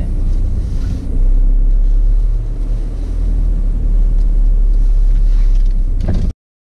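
A car running, heard from inside its cabin as a steady low rumble. The sound cuts off abruptly near the end.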